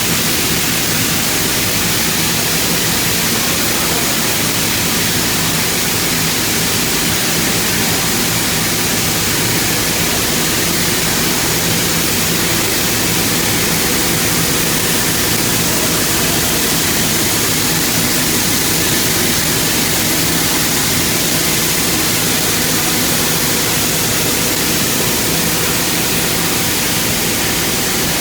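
Chinese wire-drawing machine running steadily: an even, loud rushing noise with a faint steady hum beneath it and no change in pace.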